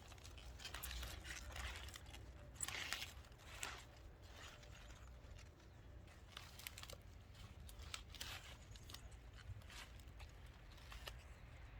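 Cabbage leaves being handled and pulled back: faint, irregular rustling and crackling with a few sharper snaps.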